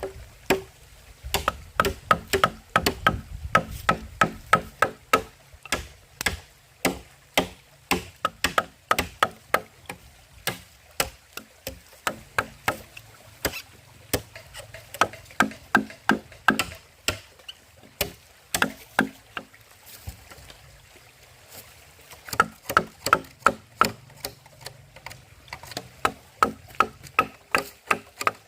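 Chopping: a blade striking wood in quick runs of about two to three blows a second, each blow with a short ring, broken by brief pauses.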